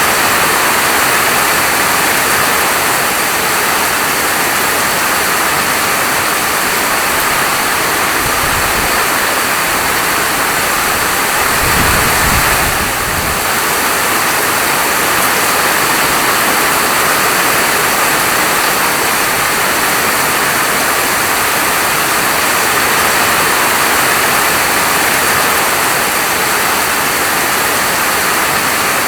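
Heavy rain falling in a steady, dense patter. A brief low rumble rises under it about twelve seconds in.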